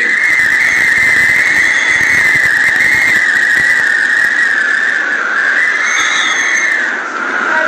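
Hurricane-force wind whistling high and wavering, its pitch drifting slowly up and down, over a steady rush of wind and rain against the house.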